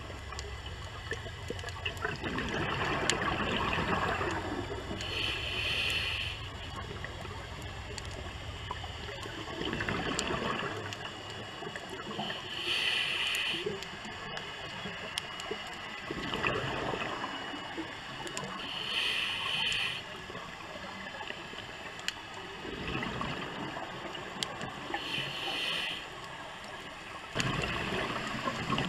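Scuba diver breathing through a regulator underwater: a short hiss of air on each inhale, then a longer burble of exhaust bubbles on each exhale, repeating about every six to seven seconds, four or five breaths in all.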